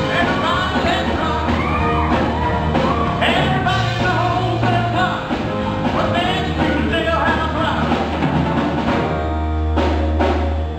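Rock band playing a rock-and-roll song: a lead singer over drums and bass, with the low end holding a long note near the end.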